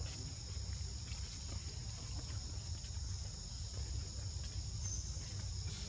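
Steady insect chorus, an even high-pitched drone, over a low constant rumble, with a few faint ticks.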